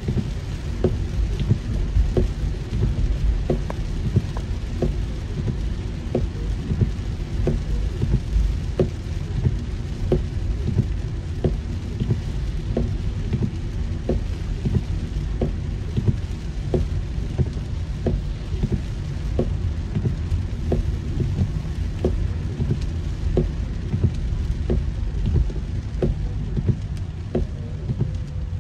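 Heavy rain hitting a car's roof and windshield, heard from inside the car: a steady low rumble full of countless single drop hits.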